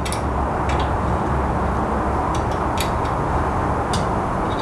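A steady low rumbling noise, with a few light metal clicks as a hex key tightens the bolts on a belt grinder's tooling arm.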